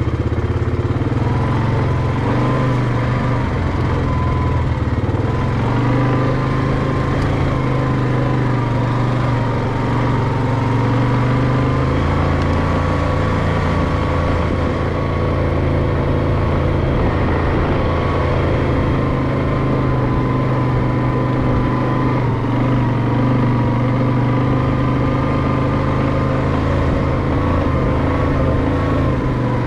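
Off-road vehicle engine running steadily, with a thin whine that wavers slightly in pitch.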